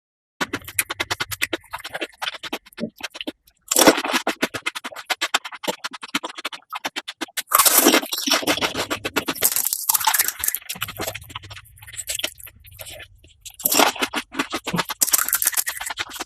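Close-miked crunching and chewing of crisp pani puri shells: dense, loud crackles in bursts with short pauses between bites.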